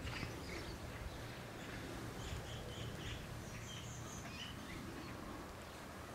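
Small birds chirping in a series of short, high notes, clustered in the middle, over a steady low outdoor background noise.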